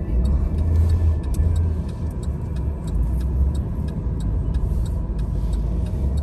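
Low road and engine rumble heard from inside a moving car's cabin, with faint light clicks a few times a second.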